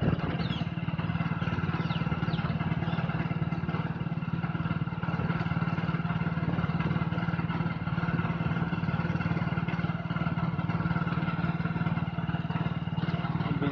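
Two-wheeler engine running steadily while riding along at an even speed, its hum holding one pitch throughout.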